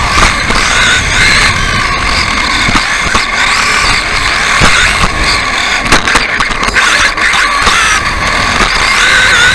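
An electric RC buggy's motor and gearing whine, the pitch rising and falling over and over as it speeds up and slows through the track, heard from a camera mounted on the car over its running noise. A cluster of sharp knocks comes about six seconds in.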